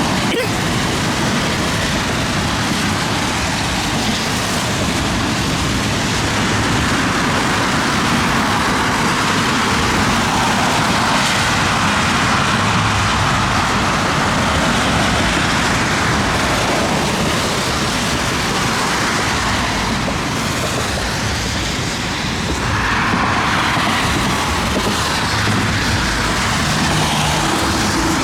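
Steady loud rush of thunderstorm rain, with the tyre swish of vehicles on a wet road swelling and fading twice, once in the middle and again a few seconds before the end.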